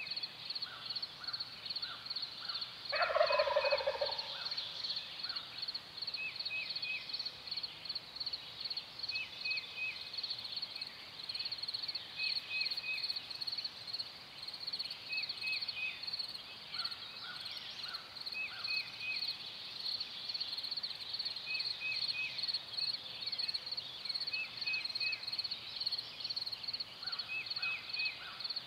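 A wild turkey gobbler gobbling once, a loud, rattling call about three seconds in. Behind it runs a steady high pulsing trill, with short three-note chirps repeated about once a second.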